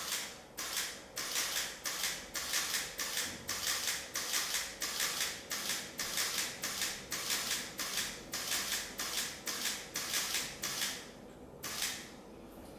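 Camera shutter firing in a rapid burst, about three frames a second for some eleven seconds, then one more frame near the end.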